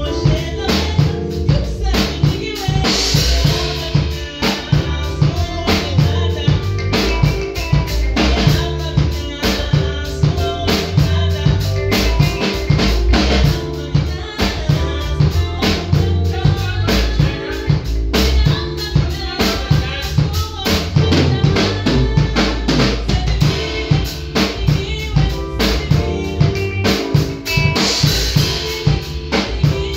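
A small live band jamming together: a drum kit keeping a steady beat under electric guitar, electric bass and keyboard.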